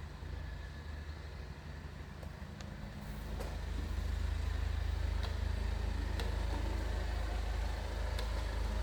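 Hyundai STVF-2 elevator running: a steady low hum that grows louder about three and a half seconds in, as if the car is setting off, with a few faint clicks.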